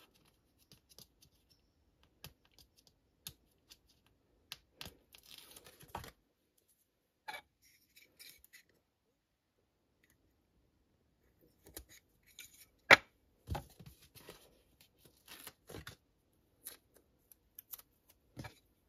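Sticker backing being peeled and small plastic toy beehive parts handled on a desk: light rustles and scattered small clicks, with a pause of a few seconds near the middle and one sharper click soon after it.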